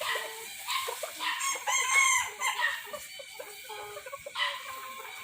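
Young bantam chickens clucking, with one bird crowing loudly about a second and a half in.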